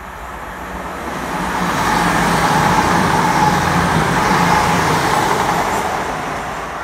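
East Midlands Trains Class 222 Meridian diesel multiple unit passing through the station at speed without stopping. The rush of wheels on rail and the underfloor diesel engines builds, is loudest in the middle, then fades as the train goes by.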